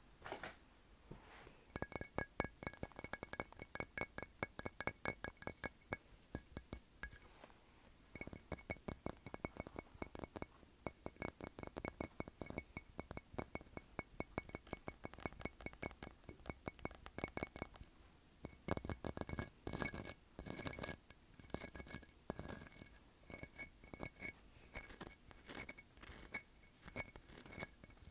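Fast fingernail and fingertip tapping on a large conch shell and glass beach trinkets: a dense patter of light clicks with a faint high ringing under it. It starts about two seconds in and eases off briefly a couple of times.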